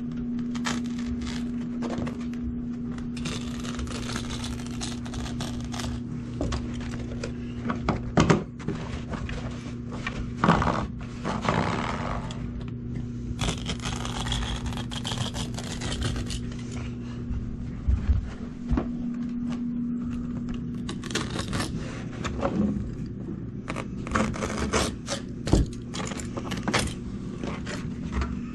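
Carpet being worked by hand at the wall edge during power stretching: the stiff backing scraping and rustling as it is pushed and pressed down along the baseboard, with scattered sharp clunks and knocks from the stretcher and hand tools, heaviest near the end. A steady low hum lies under it all.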